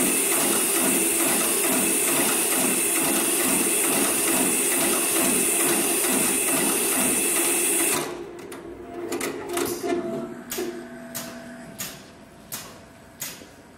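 HIGHTEX 733 programmable bar tacker running its stitch cycle through a braided rope: a fast, steady, rhythmic stitching. About eight seconds in the stitching stops abruptly, followed by a scattering of sharp clicks and knocks.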